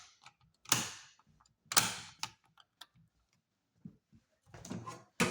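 Circuit breakers in a breaker panel being snapped back on one after another: sharp clicks with a short ring, three loud ones (about a second in, near two seconds, and near the end) among fainter clicks.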